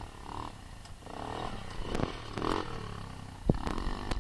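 Small quad bike engine revving in short blips as it pulls away, with a few sharp knocks, the loudest about three and a half seconds in.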